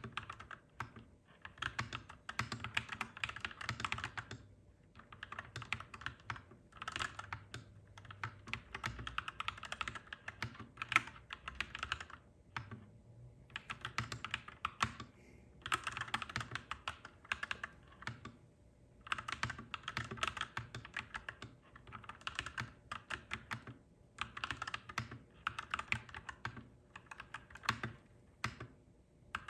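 Clacky mechanical keyboard being typed on: runs of rapid keystrokes lasting a few seconds, broken by short pauses between runs.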